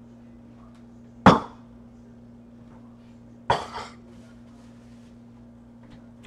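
Two sharp knocks of kitchenware being handled at a kitchen sink and counter, about two seconds apart, the first the louder, over a low steady hum.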